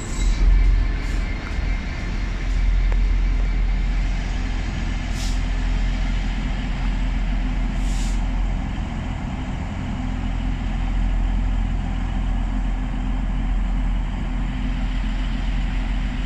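Class 66 diesel locomotive's two-stroke EMD V12 engine running with a steady low rumble as the locomotive moves away along the station track. Two brief hisses come about five and eight seconds in.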